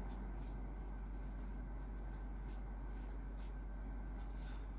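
Faint, scratchy rustling of a crochet hook and yarn as a puff stitch is worked, over a steady low hum.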